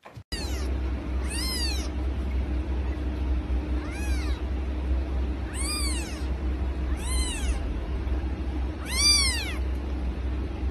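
A very young kitten mewing, about six high, thin calls that each rise and fall in pitch, one to two seconds apart, the last near the end the loudest, over a low steady rumble.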